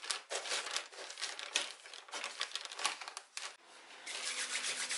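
Damp Zoo Med Excavator Clay being mixed inside its plastic bag liner, the bag crinkling and the clay scraping in irregular strokes, several a second. It is stirred with a small plastic shovel, then kneaded by hand, which turns about three and a half seconds in to a denser, steadier rustle.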